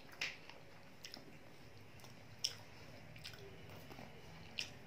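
A person chewing and smacking while eating chicken curry and rice by hand. The sound is a faint run of short wet smacks and clicks, about five of them, the sharpest about two and a half seconds in.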